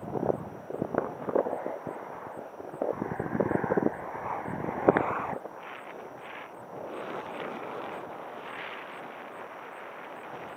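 Wind buffeting the microphone during paraglider flight: gusty, uneven rushing for about the first five seconds, then a steadier, softer hiss.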